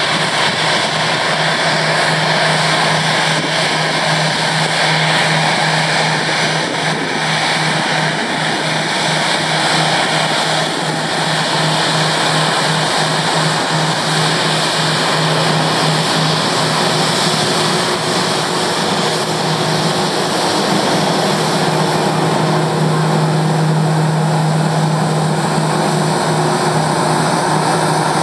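Airbus A321-211's CFM56 turbofan jet engines running at taxi power as the airliner rolls past: a loud, steady jet hiss over a low hum that swells a little in the second half.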